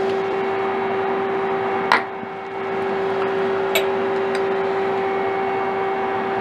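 Steady electrical hum with a fixed tone from the powered-up CNC lathe. A sharp metal click about two seconds in and a lighter one near four seconds come from the hex key against the steel knurling tool holder.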